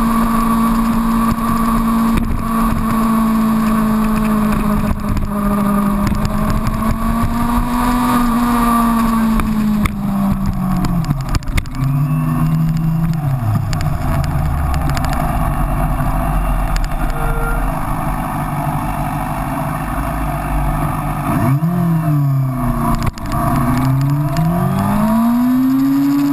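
Yamaha FZX250 Zeal's 250 cc inline-four engine running under way, picked up at the front fender along with wind and road noise. About halfway the engine note falls away and stays low for several seconds. It then dips and climbs sharply through a gear change and rises again as the bike accelerates near the end.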